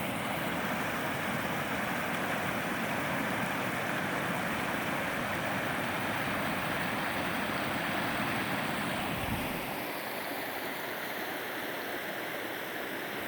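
Water rushing steadily over a beaver dam and down its short drops, a steady splashing roar; a little softer and thinner in the low end from about ten seconds in.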